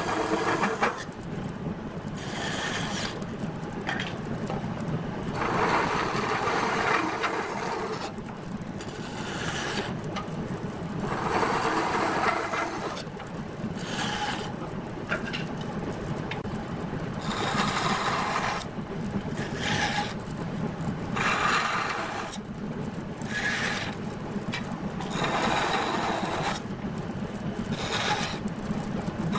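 Band saw running with a steady hum, crosscutting a narrow wooden strip into short blocks. Each cut is a rasping burst of a second or two as the blade goes through the wood, about a dozen cuts, one every two to three seconds.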